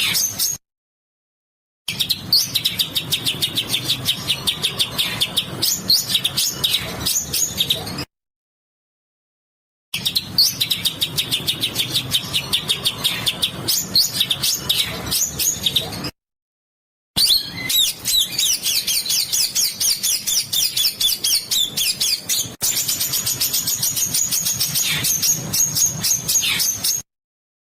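A songbird's harsh, rasping call notes (besetan kasar) repeated in fast, tight runs of several sharp high notes a second. The runs cut off abruptly into silent gaps about every eight seconds, as in an edited bird-training recording.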